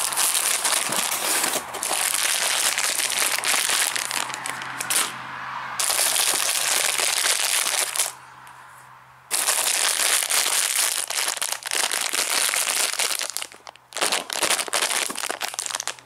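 Plastic and foil candy wrappers and gummy packets crinkling as a hand rummages through a box of wrapped sweets, with two short pauses, about five and about eight seconds in.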